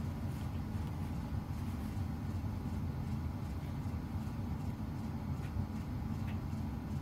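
Steady low rumble of a laundry machine running.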